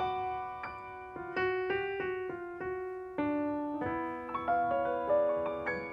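Grand piano played solo: a slow passage of chords and single notes, struck about twice a second and each left to ring and fade.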